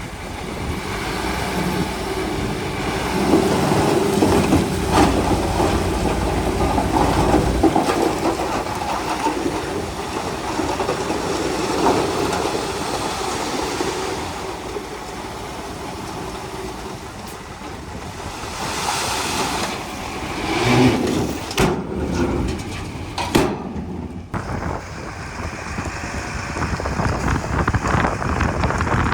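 Komatsu D31P crawler bulldozer working, its diesel engine running under load with the steel tracks clanking. The sound drops out suddenly twice, for a moment each time, near the end.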